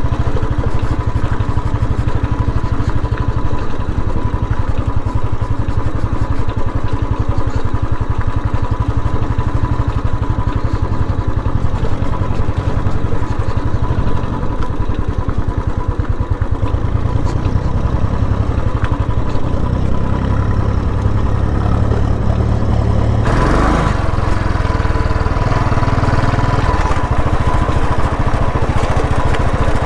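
Royal Enfield Classic 350's single-cylinder engine running steadily as the motorcycle rides over a rough, stony dirt track. Near the end a louder rushing noise rises over the engine for a few seconds.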